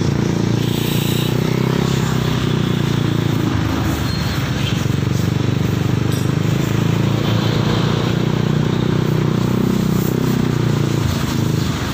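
Motorcycle engine running steadily at cruising speed, heard from the passenger's seat while riding, with road noise.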